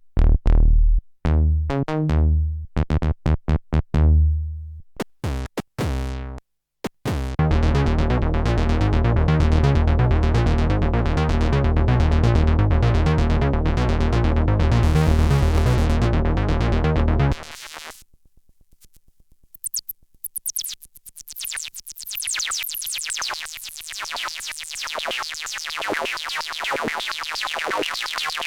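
Arturia MicroFreak synthesizer playing preset patches: deep bass notes in short phrases, then a dense, rhythmic sustained sound, which cuts off at about 17 seconds. After a brief pause, a bright, fast-repeating high sequence starts and grows louder toward the end.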